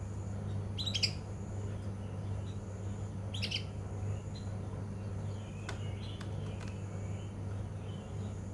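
Young male canary chirping, two short sharp chirps about a second and three and a half seconds in, then soft, quiet twittering: the juvenile's twittering stage, before its full song has formed. A steady low hum runs underneath.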